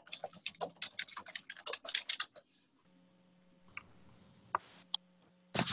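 Rapid, irregular clicking of computer keyboard keys for about two and a half seconds. It gives way to a faint steady hum with a few scattered soft clicks, and loud clicks start again near the end.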